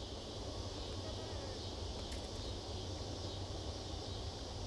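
Outdoor ambience: a steady high-pitched insect chorus over a low rumble, with a single faint click about two seconds in.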